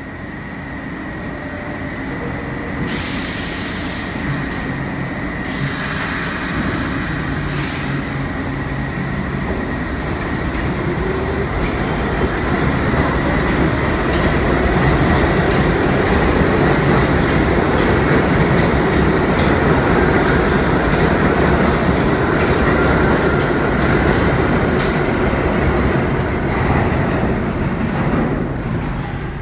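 New York City subway 6 train pulling out of a station: a few seconds of hissing air a few seconds in, then a whine rising in pitch as it accelerates away, over the growing rumble of its wheels on the rails, easing off near the end.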